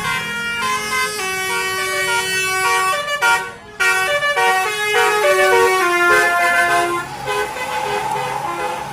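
Bus 'basuri' musical horn playing a melody in stepped notes, several horn tones sounding together, with a brief break about three and a half seconds in.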